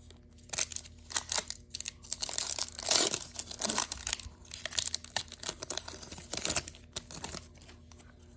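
A trading-card pack's foil wrapper being torn open and crinkled by hand, a crackling run of tearing and crumpling for about seven seconds.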